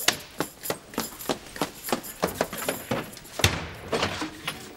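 Hurried rummaging through a wooden cabinet and drawers: a fast, irregular series of knocks, thumps and clatters as doors, drawers and objects are banged about, with a heavier thump about three and a half seconds in.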